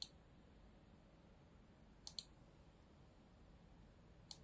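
Computer mouse clicks: three quick double ticks, a button press and release, about two seconds apart, over faint room hiss.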